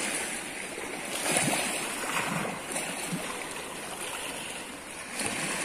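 Small waves washing and splashing against a rocky shore, swelling noticeably about a second and a half in and again near the end.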